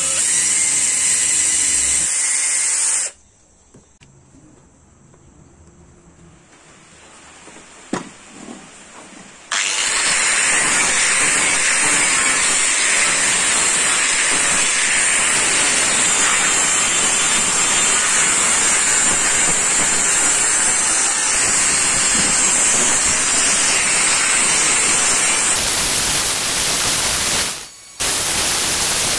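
Cordless drill running for about three seconds, then, after a quieter gap, an angle grinder grinding the circular-saw-steel machete blade steadily for most of the rest. The grinder's sound drops out briefly near the end and comes back.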